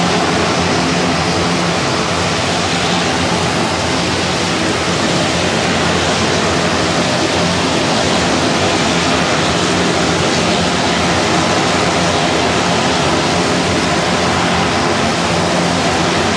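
Twin turboprop engines of a Grumman S-2T air tanker running on the ground with the aircraft standing still, giving a steady, loud rush with a low hum under it. The propellers turn while ground crew hook up a hose: a hot load of retardant with the engines left running.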